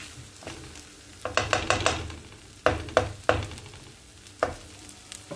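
Wooden spatula stirring and scraping rice and peas around a nonstick frying pan over a low sizzle, as the rice toasts in the oil and tomato before any water goes in. A quick run of scrapes comes about a second in, then a few sharper knocks against the pan.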